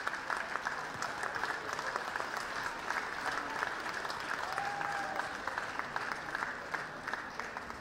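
Audience applauding: many hands clapping in a dense, steady patter that eases slightly near the end.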